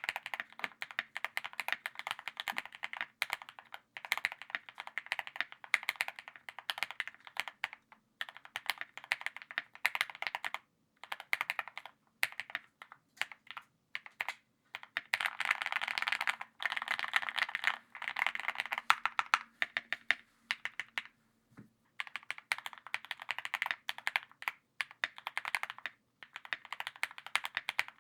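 Typing on a Cycle7 custom mechanical keyboard with an aluminium plate: a rapid clatter of keystrokes in runs with short pauses, fastest and densest around the middle.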